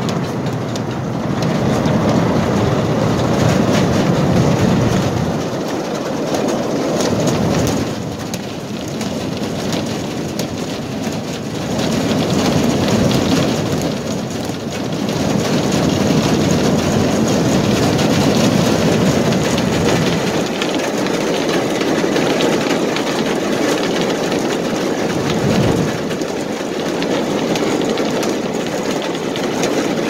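Sugar beet piler running: a loud, continuous rumble and clatter of beets tumbling along its conveyors, swelling and easing every few seconds.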